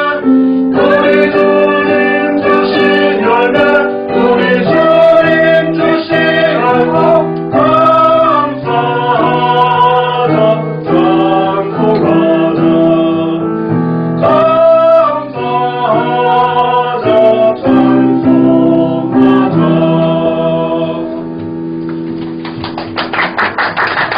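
Church choir singing a harvest thanksgiving hymn in sustained chords over instrumental accompaniment, closing on a long held chord; a rapid run of clapping starts near the end.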